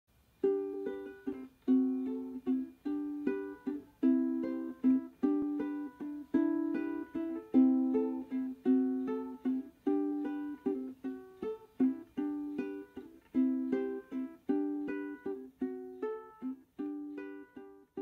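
Instrumental theme music: short chords, each dying away quickly, played in a steady, lively rhythm.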